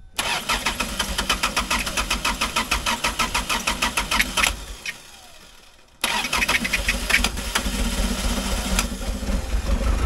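Off-road vehicle's engine being cranked over by the starter with its spark plugs pulled, a steady rhythmic chugging as oil is blown out of the cylinders. It stops about four and a half seconds in; from about six seconds in the engine is running, unevenly.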